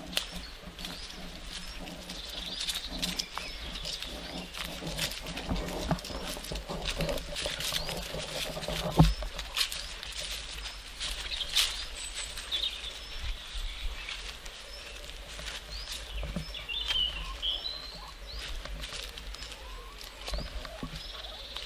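Footsteps walking down a grassy path, with birds chirping in the background. A single loud thump comes about nine seconds in.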